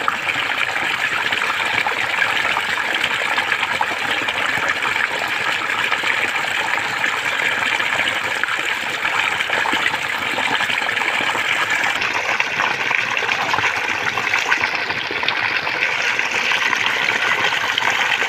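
Small cascade of water pouring into a shallow pool, splashing and frothing up bubbles in a steady, unbroken rush.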